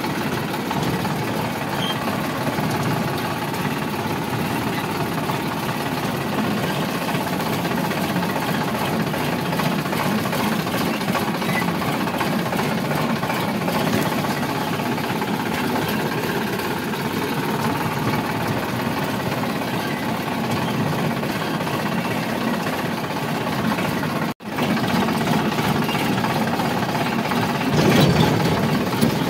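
Sonalika 745 tractor's diesel engine running steadily as the tractor drives along a rough dirt track, heard from the driver's seat. The sound cuts out for an instant about 24 seconds in and gets a little louder near the end.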